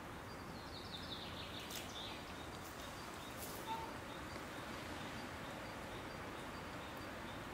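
Quiet woodland ambience: a steady faint hiss with distant bird calls, a run of high chirps in the first two seconds and a single short note near the middle.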